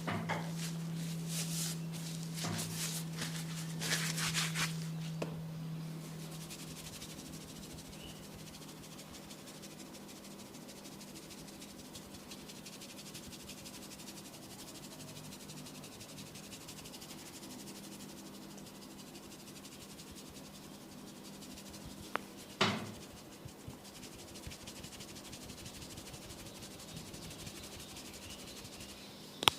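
Rubbing and scratching of a head and neck massage on skin and hair for the first few seconds, over a steady low hum. The rest is mostly quiet, with one sharp knock about 22 seconds in.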